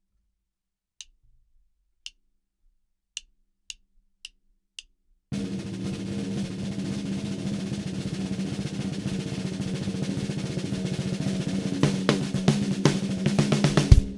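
Ludwig Supralite 14"x5.5" beaded steel snare drum: six light, sharp taps, then a roll that starts abruptly about five seconds in and grows slowly louder, with a few accented strokes near the end.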